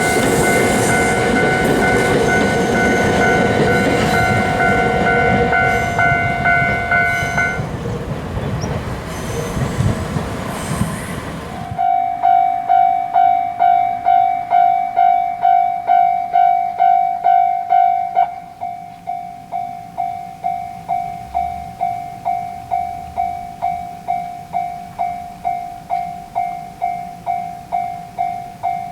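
A Japanese level-crossing warning bell rings its 'kan-kan' strokes about twice a second while a Toyohashi Railway Atsumi Line train rumbles over the crossing. The bell stops and the train noise fades. After an abrupt cut, a crossing bell rings loudly at about two strokes a second, and about six seconds later it becomes quieter and thinner as one of its tones drops out.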